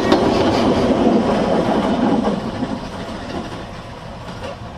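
Narrow-gauge passenger carriages rolling past on the track, their wheels clacking over the rail joints. The rumble fades steadily after about two seconds as the last carriage draws away.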